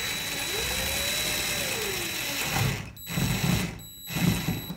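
Cordless drill driving a long doorknob mounting screw home, running steadily for about three seconds with a motor whine that rises and falls in pitch. It is followed by a few irregular knocks and clicks as the screw seats.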